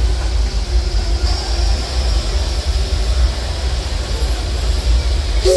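Aboard a train behind a steam locomotive: a steady low rumble, with a hiss of steam coming up about a second in. The locomotive's steam whistle starts to blow right at the end.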